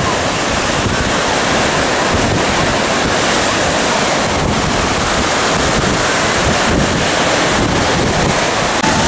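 Rough 3 to 4 foot surf breaking on the beach in a steady loud wash, with strong wind buffeting the microphone.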